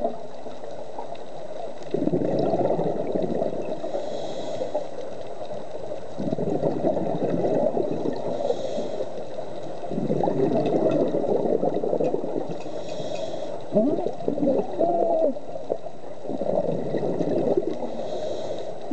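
Scuba diver breathing through a regulator underwater: a short high hiss on each inhale and a longer bubbling rush on each exhale, about four breaths in a steady rhythm.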